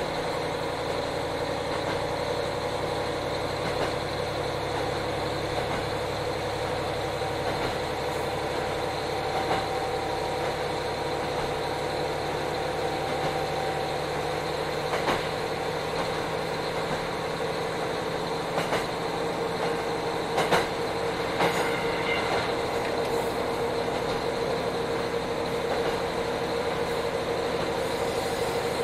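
Cabin sound of a JR Hokkaido KiHa 40 diesel railcar under way: steady drone of its diesel engine and wheels on the rails. A few short sharp clicks come about two-thirds through.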